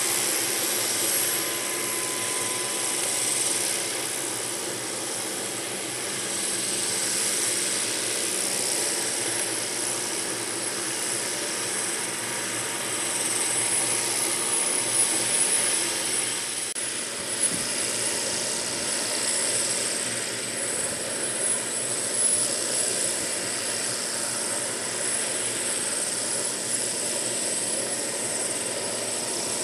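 Hughes OH-6A (MD369A) helicopter running on the ground with its main rotor turning: a steady high turbine whine from the Allison turboshaft over the rushing noise of the engine and rotor.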